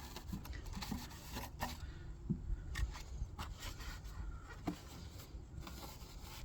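Cloth being wiped over a plastic rear lamp unit: light rubbing with a few small clicks and knocks as the unit is handled.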